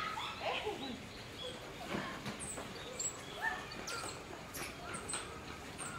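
Common squirrel monkeys giving scattered short, high-pitched chirps and squeaks.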